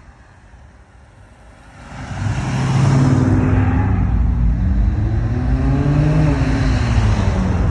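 Vehicles driving past close by. After about two seconds of quieter traffic, a loud engine comes up, its pitch climbing as it accelerates and then dropping a little after six seconds in.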